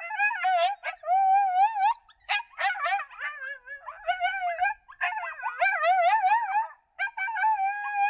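Coyote group howl: several wavering howls overlap with rapid yips and yelps, coming in bouts with brief breaks between them.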